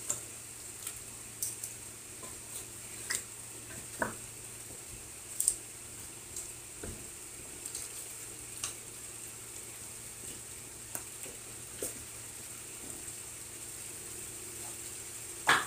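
Chicken, potatoes and carrots in spice paste sizzling with a steady hiss in a metal pot on a gas stove, while a utensil stirs them and knocks against the pot in scattered short clicks.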